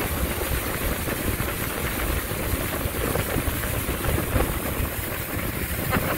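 A motorboat running underway: a steady engine rumble mixed with the rush of water along the hull and wake, and wind buffeting the microphone.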